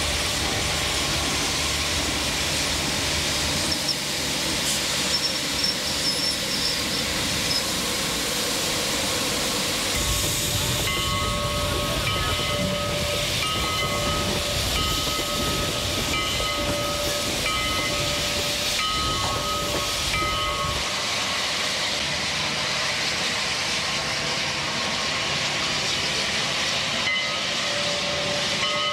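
Steam locomotive hissing steam as it moves slowly, with its bell ringing about once a second through the middle stretch.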